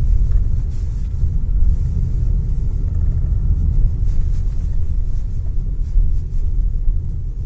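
Steady low rumble from inside a Geely Atlas, with a faint thin squeak lasting about three seconds, starting half a second in: the steering wheel's recurring squeak.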